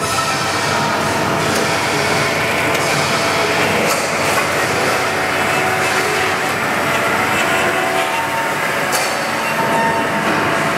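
A 1980 AMADA H-1080 automatic band saw running: a steady, loud mechanical noise with several sustained tones from the drive and blade, and a couple of faint clicks.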